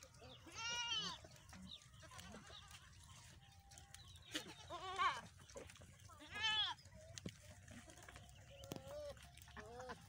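A herd of goats bleating: three loud bleats, about a second in, around the middle and a little after, with fainter bleats near the end.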